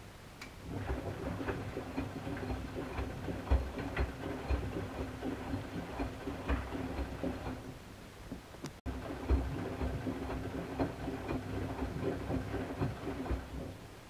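Miele Softtronic W 435 front-loading washing machine on a delicates wash, its drum turning with a steady motor hum while water and suds slosh and splash inside. It turns for about seven seconds, stops briefly, then turns again for about four seconds.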